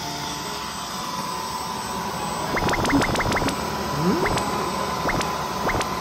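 Dyson cordless stick vacuum with a soft roller floor head running steadily, a hiss with a high steady whine. About halfway through comes a quick run of sharp clicks, then a few single clicks later.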